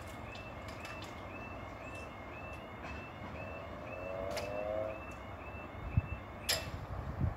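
A faint electronic alarm repeating a quick rising two-note chirp about three times a second, over a low traffic rumble. Near the middle a short, slightly rising tone sounds, and a sharp knock comes near the end.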